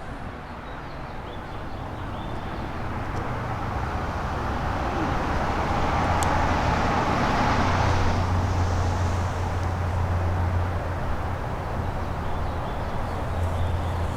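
Road traffic: a passing vehicle's tyre and engine noise swelling to a peak about eight seconds in and then easing off, over a steady low engine hum.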